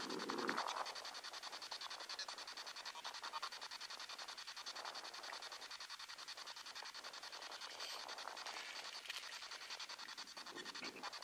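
SB7 spirit box sweeping through radio frequencies: a fast, even chatter of chopped static hiss, with a short louder fragment at the very start.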